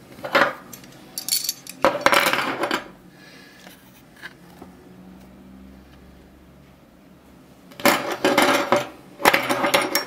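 Two metal screw-pin bow shackles and a snap-hook carabiner clinking against each other and clattering on a wooden tabletop as they are handled. There are bouts of jingling in the first three seconds and again near the end, with a quiet stretch between.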